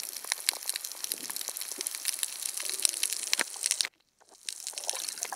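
Underwater crackling over a coral reef: a dense, irregular stream of sharp clicks that cuts out briefly near the end.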